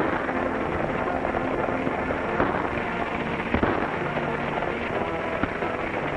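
Galloping horses and a rattling stagecoach at speed, with a few sharp cracks standing out, over a dense old-film soundtrack with chase music.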